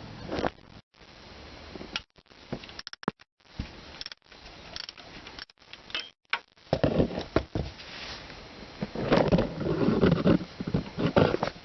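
Irregular clicks, knocks and rustling of hand work on metal parts around a tractor's clutch release cylinder, busiest near the end.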